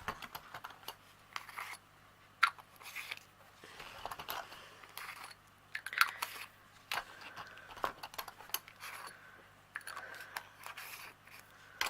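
Plastic diamond-painting drill storage bottles and their carry case being handled: irregular sharp clicks and short crinkly rustles of plastic and packaging.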